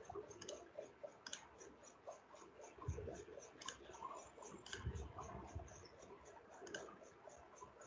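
Faint clicking from a computer mouse as on-screen menus are opened, over a fast, even run of soft high ticks, with a couple of soft low thumps about 3 and 5 seconds in.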